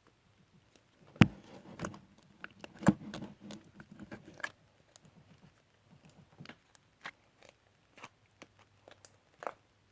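Small clicks, taps and crackles from things being handled close by, with two sharper knocks about one and three seconds in.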